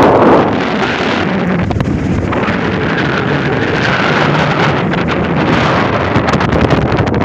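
Wind buffeting the phone's microphone on the open deck of a moving cruise ship, a steady loud rush with gusty crackles, strongest at the very start.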